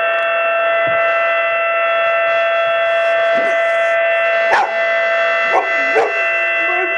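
Recording of a tornado siren wailing steadily at one high pitch, while a Boxer dog howls along in a few short rising-and-falling howls through the second half.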